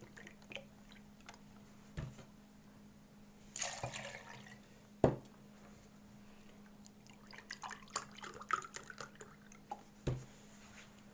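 Milk poured from a glass into a blender jar, a short pour about four seconds in, followed by a sharp knock of glass on the jar. Light clinks and a thud follow near the end, over a steady low hum.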